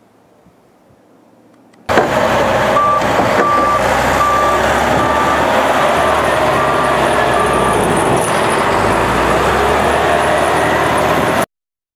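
A heavy truck's engine running, with its reversing alarm beeping at an even pace for several seconds. The sound starts suddenly about two seconds in and cuts off near the end.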